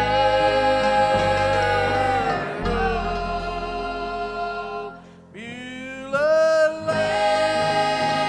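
Gospel-style song: a voice holding long notes over instrumental accompaniment, with a short drop about five seconds in before the voice slides up into the next note.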